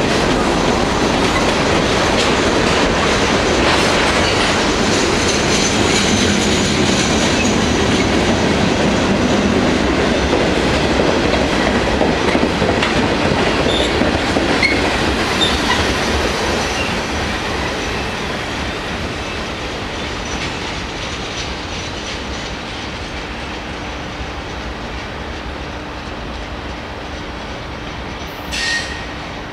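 Freight cars of a long CSX freight train rolling past, with wheels clacking over the rail joints. The sound fades away after about sixteen seconds as the end of the train passes and recedes. A short knock comes near the end.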